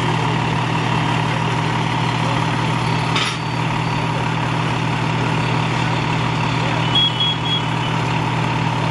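Fire apparatus diesel engine running steadily at the fireground, with a constant whine over its drone. A click about three seconds in and a few short high beeps about seven seconds in.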